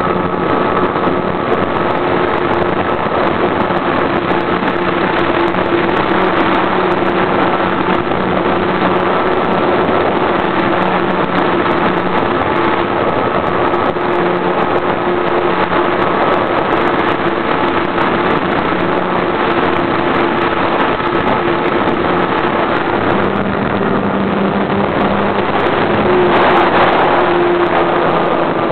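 Taxi 3 RC model airplane's engine running steadily, heard from a camera mounted on the plane, under a dense rushing noise; its pitch shifts a little in steps and it swells louder near the end.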